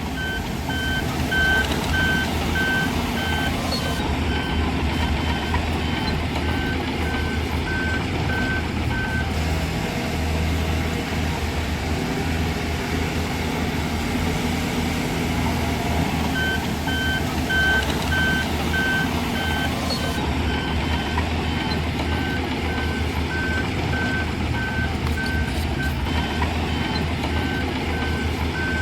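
Heavy construction machinery's diesel engine running steadily with a backup alarm beeping at an even pace over it. The beeping stops for several seconds around the middle, then starts again.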